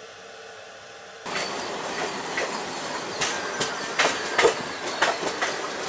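Indian Railways passenger train running at speed, heard from an open coach door: a loud rush of wheel and wind noise with sharp clanks as the wheels clatter over rail joints. For about the first second only a faint steady hiss comes through a closed window, then the sound jumps suddenly to full loudness.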